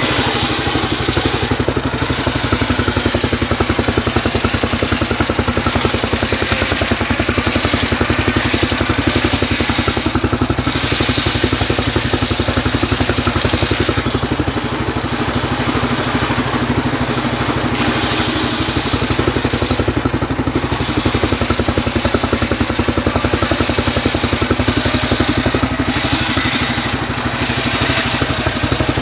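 Engine-driven homemade circular sawbench running steadily while its large blade rips a trembesi (rain tree) log into boards. Under the even beat of the engine, the hiss of the blade in the wood rises and falls as each pass is fed through.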